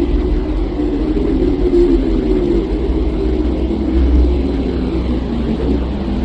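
Steady, deep rumbling drone with a slow sweeping whoosh above it: an ambient 'sound of Earth from space' track.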